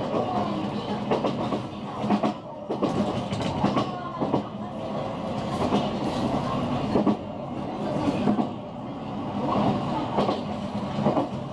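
Single-car JR West 125 series electric train running along the track, heard from inside the car, with steady running noise and its wheels clacking over rail joints every second or so.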